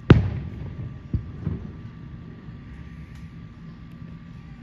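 An aerial firework shell bursts with one loud boom that rumbles away. Two fainter pops follow about a second later.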